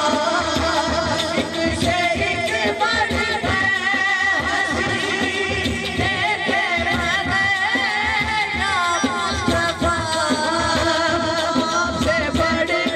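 A man singing a devotional naat into a microphone through a PA, his voice wavering in long ornamented lines over a steady rhythmic accompaniment.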